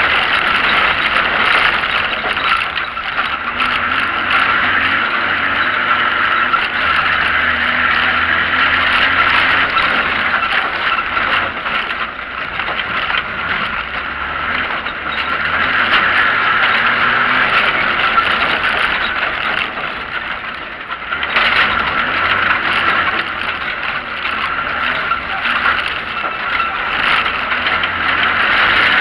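Off-road vehicle driving fast along a dirt track, its engine running under load beneath a loud, steady rush of wind and road noise. The noise drops off briefly about two-thirds of the way through, then picks up again.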